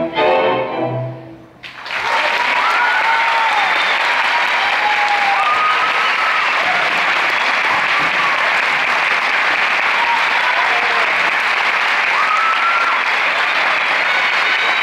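Tango music ends on a final held chord that dies away. About two seconds in, a theatre audience breaks into steady applause with scattered cheers over it.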